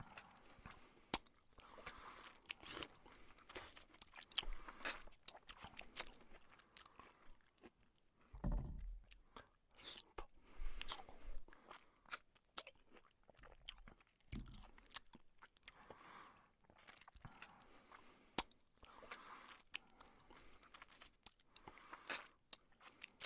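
A person chewing spicy instant noodles: many sharp wet mouth clicks and smacks, with low thumps about eight and a half and fourteen and a half seconds in.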